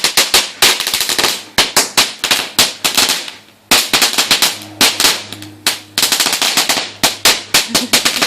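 Firecrackers going off in rapid strings of sharp bangs, many a second, with a short lull about three seconds in before the cracking picks up again.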